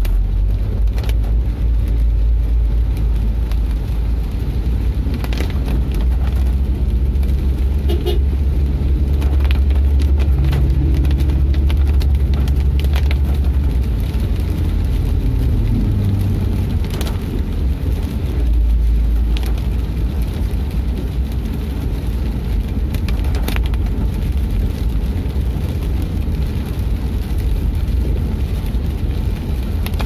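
Car cabin noise while driving on a wet road: a steady low rumble of engine and tyres, with occasional sharp taps and a brief rising engine tone about halfway through.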